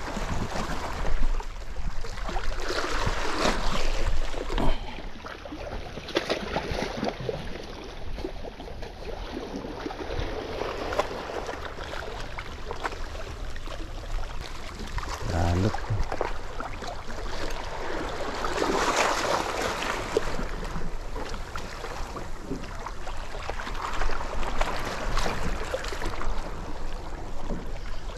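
Small waves lapping and sloshing against shoreline rocks, swelling louder now and then, with wind on the microphone and a short low thump about fifteen seconds in.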